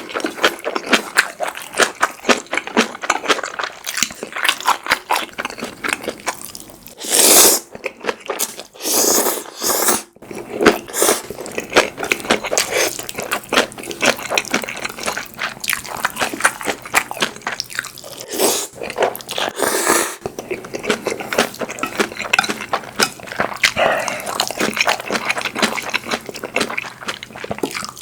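Close-miked eating: a person chewing and biting food, with many rapid wet clicks and crunches, broken by a few louder, longer noisy bursts about 7, 9, 10 and 19 seconds in.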